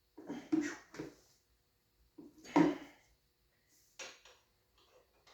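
Metal hand tools clinking and clattering in three short bursts with pauses between, as tools are picked up and set to work on the dirt bike.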